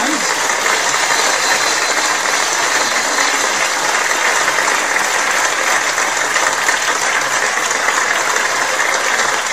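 Dense, steady applause from a large audience, many hands clapping at once.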